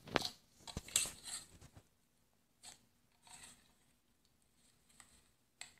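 Fluffy slime squelching and crackling as hands knead and press it, with a busy run of sticky pops and clicks in the first two seconds, then a few scattered pops.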